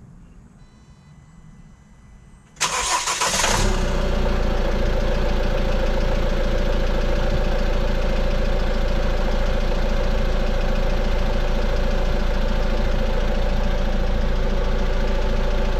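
Peugeot Boxer 2.2 HDi four-cylinder diesel engine starting about two and a half seconds in: a short burst of cranking that catches within about a second, then the engine idles steadily. It is running with a newly fitted timing chain.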